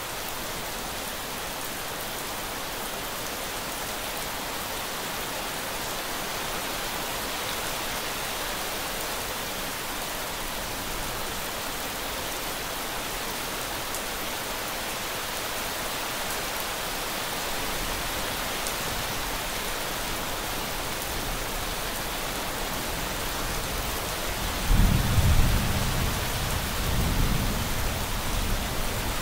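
Steady rain hiss. Near the end a thunderclap breaks in with a sudden loud low rumble that keeps rolling.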